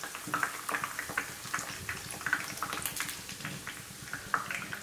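Hot oil sizzling as bhatura dough deep-fries in a pan, with many small irregular crackles and pops.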